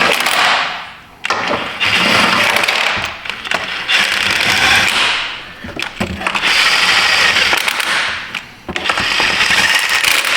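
A 1/2-inch impact wrench hammering in four bursts of about two seconds each, running the motor mount bolts down snug before they are torqued to spec.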